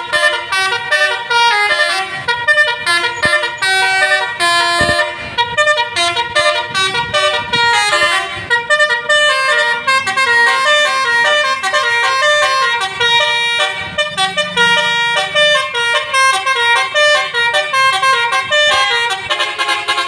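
Tour bus's basuri musical air horn (telolet horn) with a DAV tune module, playing a fast melody of quickly changing multi-note chords without a break.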